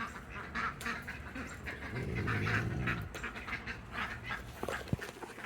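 Poultry clucking and calling in short, soft bursts, with a low drawn-out sound about two seconds in.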